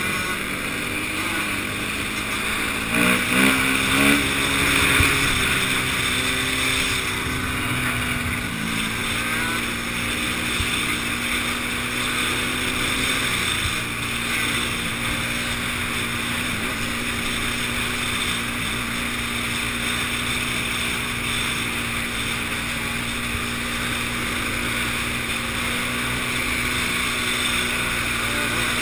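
Enduro motorcycle engine running on board, holding a fairly steady speed, with the revs rising and falling a few times about three to five seconds in.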